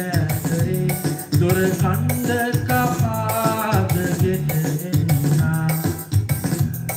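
A song with a singing voice over a steady beat and heavy bass, played through a Sony MHC-V13 party speaker.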